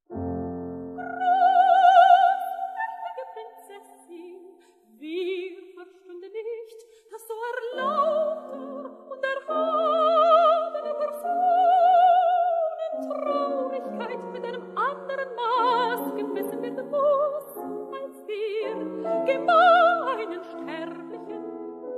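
Operatic coloratura soprano singing a German recitative with wide vibrato on held high notes over instrumental accompaniment. The voice comes in about a second in, after an opening chord.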